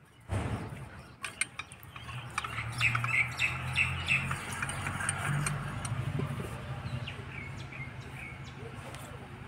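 Small birds chirping in short repeated calls, with a few sharp clicks about a second in.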